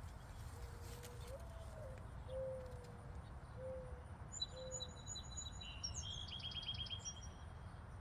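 Garden birds calling: a bird gives four low cooing calls in the first five seconds. From about halfway in, small birds chirp high and give a fast, rapidly repeated trill. A low background rumble lies under them.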